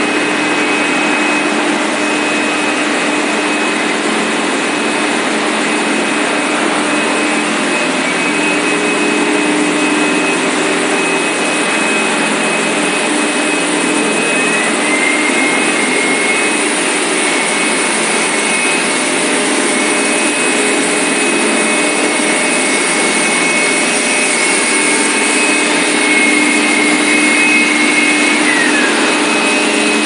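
Machinery of a PVC cable extrusion line running: a steady mechanical hum and hiss with a few constant tones. A higher whine rises in about halfway through, holds, then drops away near the end.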